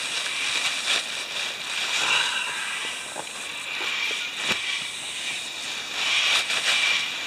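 Crinkly rustling of an orange plastic bag used as a makeshift dry bag as a rolled canvas swag is dragged out of it, swelling about two seconds in and again near the end.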